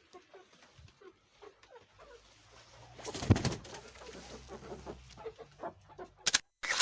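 Chickens clucking softly in short scattered calls, with one loud sudden noise about three seconds in and a couple of sharp bursts near the end.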